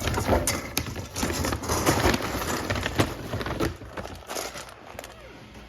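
Dry dog kibble clattering and rattling in a dog bowl: a dense run of small hard clicks that starts suddenly, lasts about four seconds, then thins to a lighter clatter.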